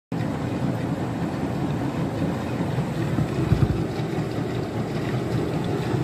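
Beko WTK104121W washing machine running with its drum turning fast and soapy water churning inside it: a steady rumble and swish, with a few heavier surges a little past halfway.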